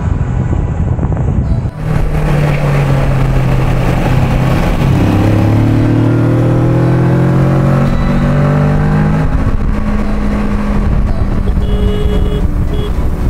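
Motorcycle engine pulling under acceleration, its pitch rising slowly and then holding steady, under a constant rush of wind noise.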